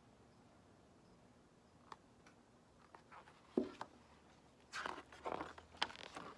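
Page of a hardcover picture book being turned by hand: near quiet at first, then from about three seconds in a string of paper rustles and brushes with a sharper knock from handling the book.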